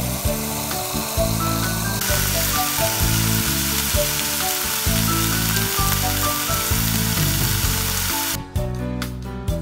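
Pork belly slices sizzling loudly in a hot frying pan, starting about two seconds in and cutting off suddenly near the end. Before that, tap water runs over leaves in a bowl, and background music plays throughout.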